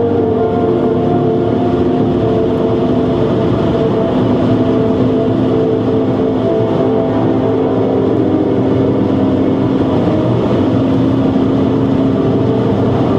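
BMW 130i's 3.0-litre straight-six engine running steadily at Autobahn speed, heard from inside the cabin together with tyre and wind noise.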